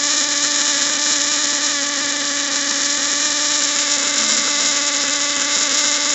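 Automotive ignition coil driven by a 12 V car relay wired in self-oscillation, running continuously: the relay's steady buzz mixed with the rapid crackle of high-voltage sparks arcing at the coil's terminal. The pulsed DC from the oscillating relay gives very frequent sparks.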